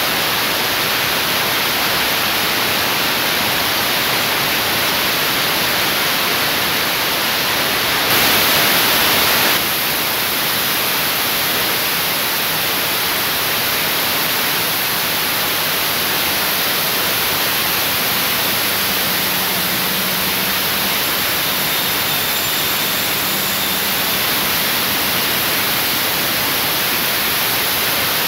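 Loud, steady static-like hiss covering everything, with a brief louder stretch about eight seconds in.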